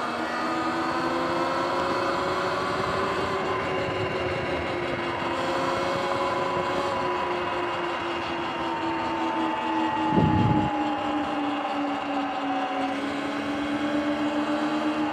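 Sur-Ron electric dirt bike cruising: a steady electric-motor whine made of several tones that drift slowly in pitch as the speed changes, over a rush of tyre and wind noise. A brief low thump comes about ten seconds in.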